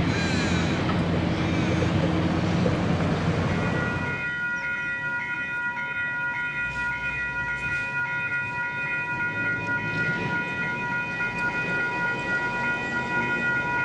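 For about the first four seconds, a passing road vehicle's engine and tyre noise; then the level crossing's electronic bells (e-bells) ring steadily as the crossing activates and the booms come down.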